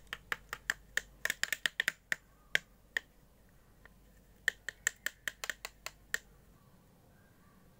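A paintbrush stirring thick acrylic paint in a hard clear plastic tray, clicking and tapping against the plastic. The clicks are sharp and quick and come in two runs: one over the first three seconds and another from about four and a half to six seconds in.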